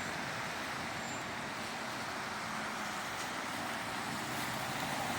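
Steady road traffic noise: a continuous hiss and low rumble of passing cars and trucks.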